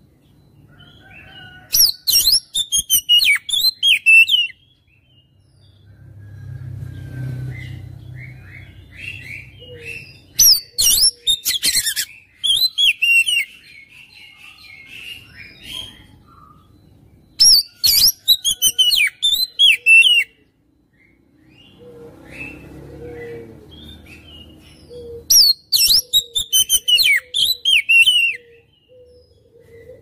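Oriental magpie-robin singing in four loud bursts of rapid, falling whistled notes mixed with harsh clicks, each burst two to three seconds long. Softer chattering notes and a low rumble fill the gaps between bursts.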